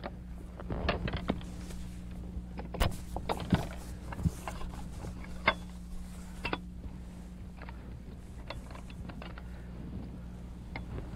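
Irregular sharp clicks and knocks of gear being handled in a small fishing boat, thickest in the first half, over a steady low hum.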